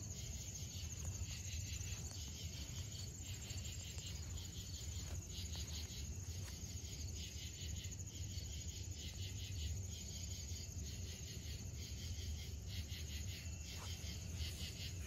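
Faint insects chirping in rapid, evenly repeated high pulses, over a steady low hum.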